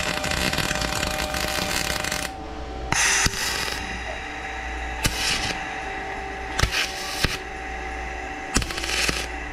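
Spool-gun MIG welder arcing on an aluminium radiator tank: a steady crackling hiss for about two seconds, then a few short bursts of arc, each under a second.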